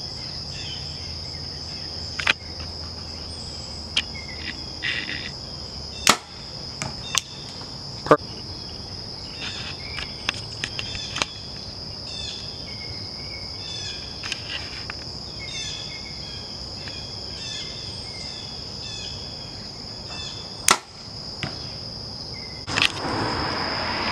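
Compound bows being shot, each release a sharp snap; the two loudest come about six seconds in and near the end. Insects call steadily in a high band throughout, with a few smaller clicks, and a rushing noise sets in just before the end.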